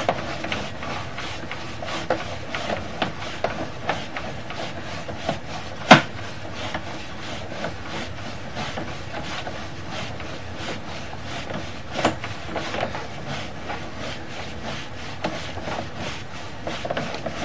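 Sewer inspection camera's push cable being fed down a sewer line: steady rubbing and scraping with a quick run of light clicks, a sharper knock about six seconds in and another about twelve seconds in.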